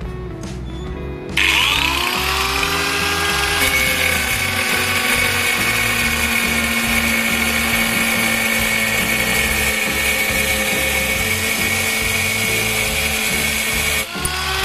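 An angle grinder with a 4-inch diamond saw blade starts up about a second and a half in, its whine rising to speed. It then runs steadily as the blade cuts into the workpiece. Near the end the pitch dips briefly and climbs again.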